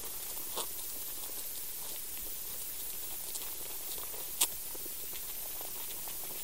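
Sounds from below ground recorded inside the soil: a steady hiss with many faint scattered clicks and scratches from soil life and soil processes, and one sharp, louder click about four and a half seconds in.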